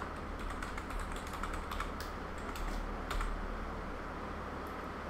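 Typing on a computer keyboard: a run of quick key clicks that thins out after about three seconds, over a steady low hum.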